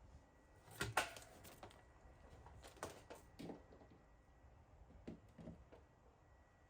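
Faint handling noises: a few scattered clicks and rustles, the loudest about a second in, over a quiet room.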